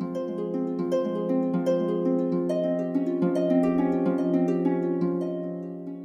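Background music: a plucked-string instrument playing a flowing run of ringing notes, which thins out and fades near the end.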